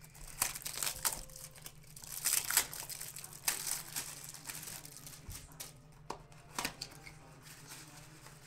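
Plastic wrapping on a sealed box of baseball cards crinkling and tearing in short irregular bursts as the box is opened.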